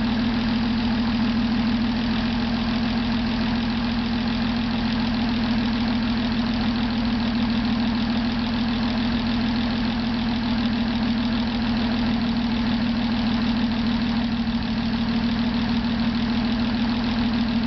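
M29C Weasel's Studebaker Champion six-cylinder flathead engine idling steadily on its first run after a complete rebuild.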